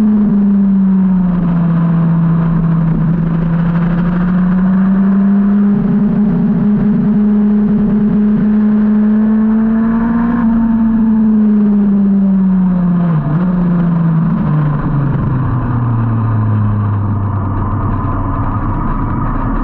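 Yamaha R1's inline-four engine at track speed over wind rush. Its note drops at first, climbs steadily under throttle, then falls away in steps from about eleven seconds in as the bike brakes and downshifts for a slow corner.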